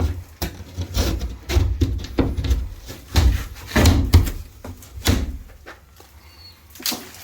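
Irregular knocks, thuds and clatter of objects being handled, loudest in the first five seconds and sparser near the end.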